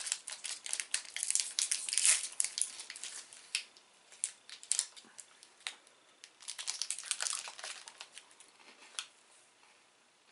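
Plastic wrappers of mini KitKat bars crinkling and tearing as they are unwrapped, in a dense run of crackles over the first three or four seconds, then a shorter run about seven seconds in.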